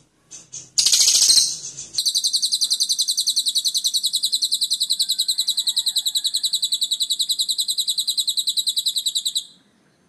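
Lovebird giving its long 'ngekek' trill, a rapid, even chattering of about ten notes a second, held for about seven seconds before stopping abruptly near the end. Before it come shorter chattering bursts and a loud harsh burst about a second in.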